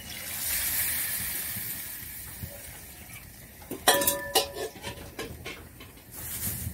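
Water just poured into a hot wok of curry masala sizzles, the hiss fading over a couple of seconds. About four seconds in, a metal spatula clanks against the wok with a brief ring, followed by lighter scraping clicks of stirring.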